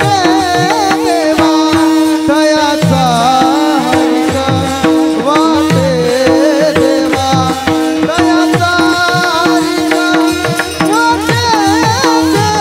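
Warkari bhajan accompaniment: a mridang (pakhawaj) drum played in quick rhythmic strokes, its bass strokes sliding in pitch, over a steady held drone and a wavering melody line, with small hand cymbals (taal) clashing in time.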